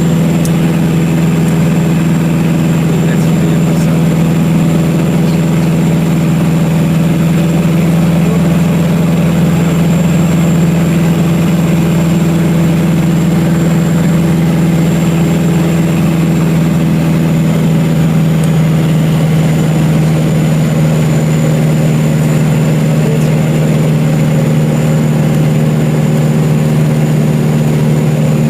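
Cessna 177RG Cardinal's Lycoming IO-360 engine and propeller running steadily at constant power: a loud, even low drone with a faint high whine above it.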